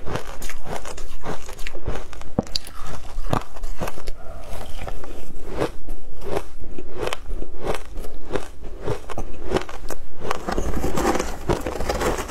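Matcha-coated shaved ice being bitten and chewed close to the microphone: dense, irregular crunching and crackling of ice.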